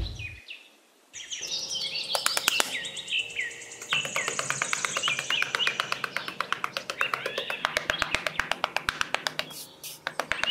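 Birds chirping and twittering over a rapid run of sharp scraping clicks, several a second, from a small metal trowel working over sand. Both start after a brief hush at the beginning.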